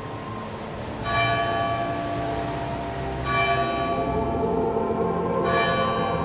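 A church bell tolling slowly: three strokes about two seconds apart, each ringing on and dying away. A steady low background noise runs beneath it.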